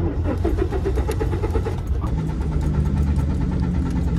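A car's starter cranking the engine in quick rhythmic pulses, then a steadier drone, without the engine catching: the car won't start.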